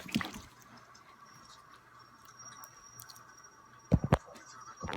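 Slime being squeezed and poked by hand, giving short wet squelches: a few at the start and a louder cluster about four seconds in, with quiet in between.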